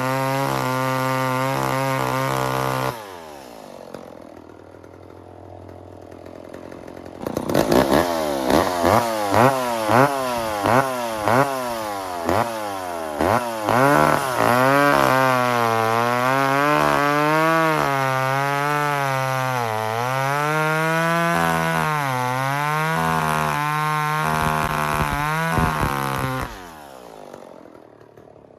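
McCulloch 10-10 two-stroke chainsaw running at high revs, then dropping to idle about three seconds in. After a few seconds of idling it is revved in a string of quick blips, then held at high revs with the pitch rising and falling as it cuts wood. It drops back to idle near the end.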